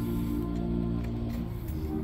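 Brass band playing slow, sustained music, the chord changing near the end.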